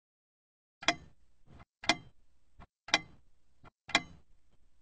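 Clock ticking as a sound effect: four sharp ticks about a second apart, each followed by a fainter tock.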